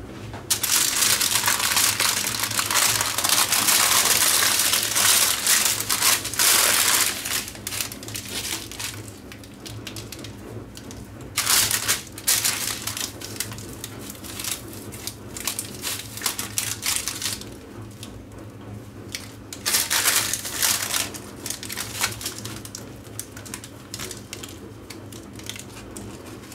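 Crust of a freshly baked sesame-topped flatbread crackling and crunching as hands squeeze and tear it apart, with the baking paper beneath crinkling. The crackling is loudest and most continuous for the first several seconds, then comes back in shorter bursts about twelve and twenty seconds in.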